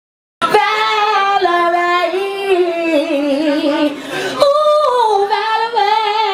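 A woman singing into a microphone, holding long notes with vibrato that step and slide downward. The sound drops out completely for a moment at the very start before the voice comes back in.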